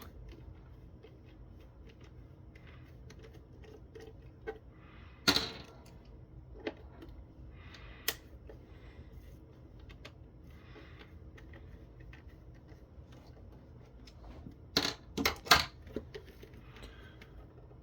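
Scattered clicks and taps of plastic and metal as the tweeter is pried at in the conference phone's plastic speaker housing, with a cluster of sharper clicks about fifteen seconds in, over a faint steady hum.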